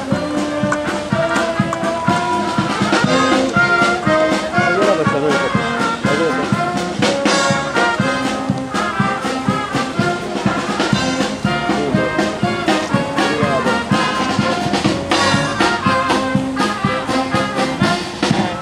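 A brass band playing a tune, with trumpets and trombones over a steady beat.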